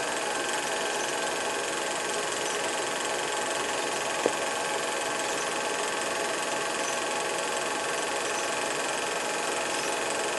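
Steady mechanical whir and hum over hiss, unchanging throughout, with a single sharp click about four seconds in.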